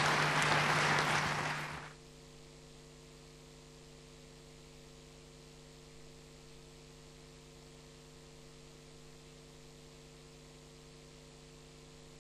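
Audience applause that cuts off sharply about two seconds in, leaving a steady electrical mains hum.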